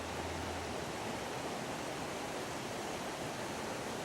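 Steady, even rush of a flood-swollen creek and waterfall. A low hum underneath stops under a second in.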